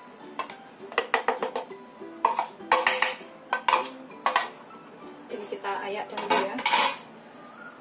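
A metal spoon scraping and knocking against a plastic tub and the rim of a metal mesh sieve as rice flour is tipped out: four clusters of quick clattering knocks, with quiet stretches between them.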